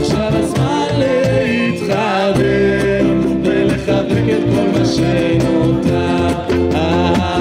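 Live acoustic guitar strumming with a man singing into a microphone, a steady rhythm carrying through.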